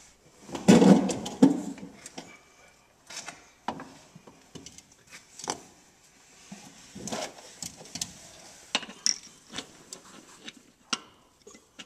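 Handling noise from working under a truck: a loud rustling clatter about a second in, then scattered clicks, knocks and scrapes of tools and parts being moved.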